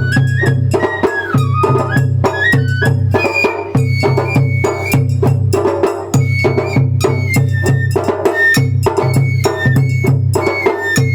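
Japanese festival hayashi music. A high bamboo flute plays a melody that moves in steps, over steady drumming and rapid, sharp percussive strikes.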